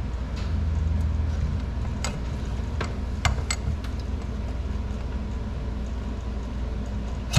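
Light metal clicks and taps as a cylinder jug is worked down over a Kawasaki two-stroke engine's pistons, about five in the first three and a half seconds. Under them runs a steady low hum.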